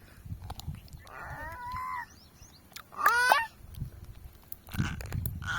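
Goat bleating: a nasal call about a second in, then a short, quavering bleat about three seconds in.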